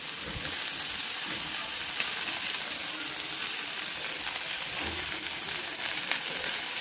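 Chopped onion, capsicum and cabbage sizzling in hot oil in a steel kadhai: a steady frying hiss with a few faint ticks.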